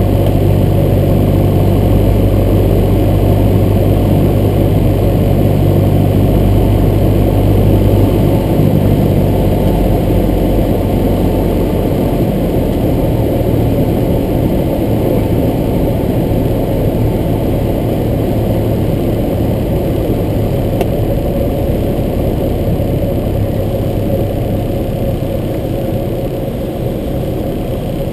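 Cessna 172's piston engine and propeller droning inside the cockpit, with airflow noise, during the landing approach and touchdown. The low engine hum fades after about eight to ten seconds and the sound slowly grows quieter as power comes back toward idle for the landing.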